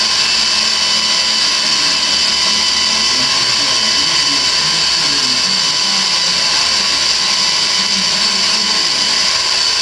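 CNC machine spindle running and cutting a laser-collimator body: a steady high-pitched whine over a constant hiss.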